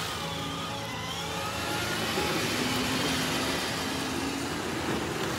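Electric motors and gearbox of a modded ride-on Power Wheels toy car whining as it circles, the pitch slowly rising and falling.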